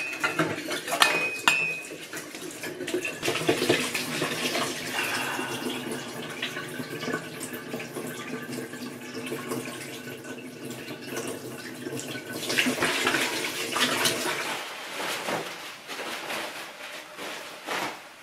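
Kitchen tap running into a stainless steel sink while dishes are scrubbed with a brush, with sharp clinks of plates and cutlery in the first couple of seconds.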